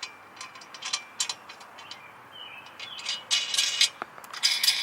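Small metal bolts and nuts clinking and rattling as they are handled, a run of short sharp clicks that gets busier in the second half.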